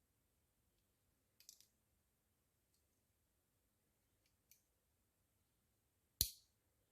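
Near silence broken by a few sharp clicks of a Leatherman Surge multi-tool being handled. The loudest, a click with a dull knock, comes about six seconds in.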